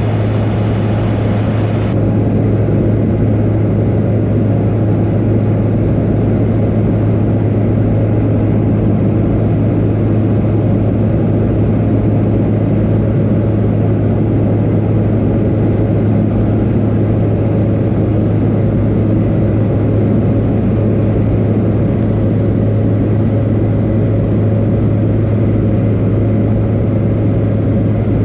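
Steady drone of a high-wing light aircraft's engine and propeller heard from inside the cabin, dominated by a strong low hum. The high hiss above it drops away about two seconds in.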